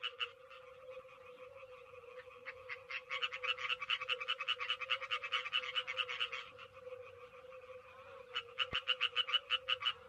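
A chorus of European tree frogs calling in rapid runs of harsh, evenly spaced notes, about seven a second. It is loudest in a long run about three seconds in and another near the end. A steady low tone sounds underneath.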